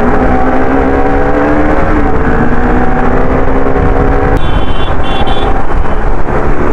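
Motorcycle engine running under load at road speed, its note climbing with a gear change about two seconds in, over heavy wind rush. A vehicle horn sounds twice in quick succession a little past the middle.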